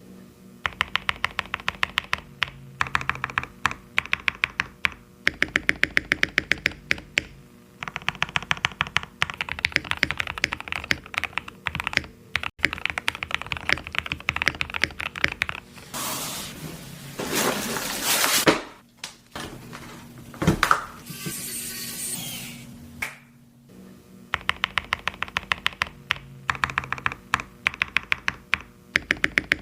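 Typing on a mechanical keyboard fitted with Cherry-profile double-shot keycaps: fast runs of key clicks, several a second, in bursts with short pauses between them. Midway the typing stops for a couple of seconds of rushing noise and one sharp knock, then it starts again.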